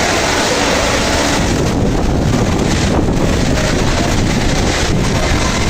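Loud, steady rush of heavy rain and storm wind, with wind buffeting the microphone.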